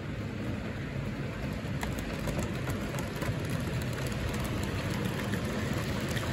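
Model diesel locomotive and a string of freight cars rolling past on model track: a steady rumble of wheels and motor, with many small clicks from the wheels and rail joints.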